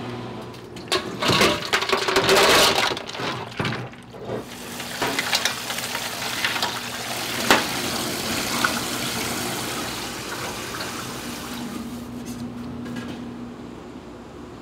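Running water, loudest in the first few seconds and then flowing more quietly, with a few sharp knocks and clatters.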